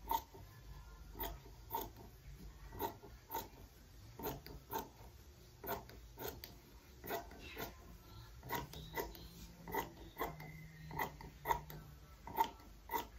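Scissors cutting cloth into strips, with a short snip of the blades about twice a second.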